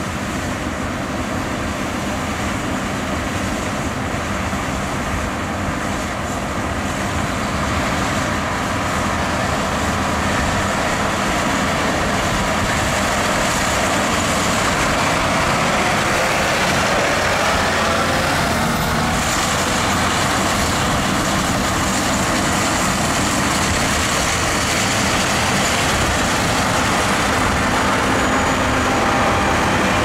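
A John Deere combine harvester and a John Deere 8RX tracked tractor running close by in a steady, loud machinery drone of engines and threshing gear. It grows somewhat louder a few seconds in and holds there as the machines pass.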